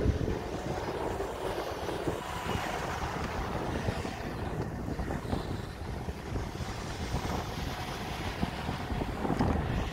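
Nissan Pathfinder R50 SUV drifting in tight circles on loose desert sand: engine running hard and wheels spinning through the sand, with wind on the microphone. Louder near the end as the vehicle comes round toward the camera.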